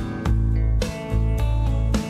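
Background music with a regular beat and deep held bass notes.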